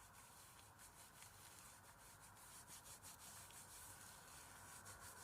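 Near silence with faint soft rubbing and small ticks: hands working soap lather over the face.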